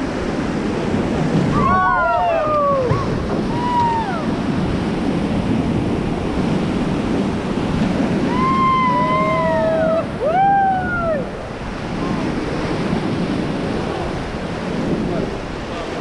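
Whitewater rapid rushing and splashing around an inflatable raft as it runs through. Over it, people on the raft give short whooping shouts that rise and fall in pitch, a few near the start and a couple more around the middle.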